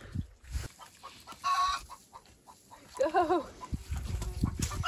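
Domestic hens clucking: a short squawk about one and a half seconds in, then a wavering call about three seconds in and another near the end. Low thumping noise runs under the last second or so.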